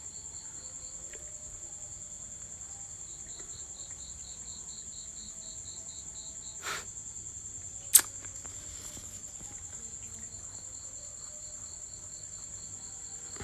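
An insect trilling steadily at a high pitch in a fast, even pulse. A soft knock comes about seven seconds in and a sharp click about eight seconds in.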